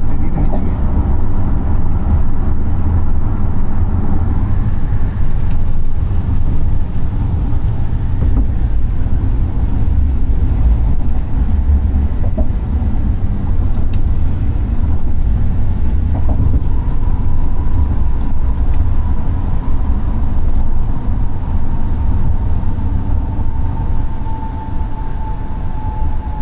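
Steady road and engine rumble heard inside the cabin of a vehicle moving along a highway. A faint high whine joins it partway through.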